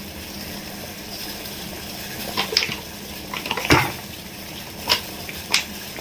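Kitchen utensils clink and knock against a pan several times, over the steady noise of water boiling on the stove.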